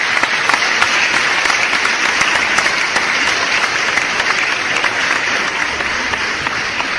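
Crowd applause: many hands clapping in a steady, dense patter.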